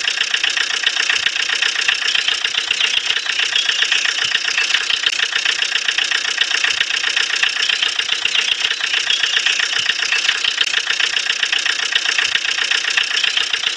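Motor running steadily with a fast, even rattle, holding the same speed throughout.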